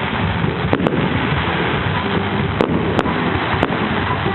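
Fireworks display: about five sharp bangs, two of them close together near the start, over a continuous dense crackle.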